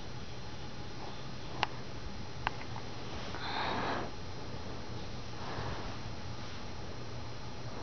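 A person breathing in through the nose close to the microphone, with audible sniffs every couple of seconds, the strongest about three and a half seconds in. Two sharp clicks come between one and a half and two and a half seconds in.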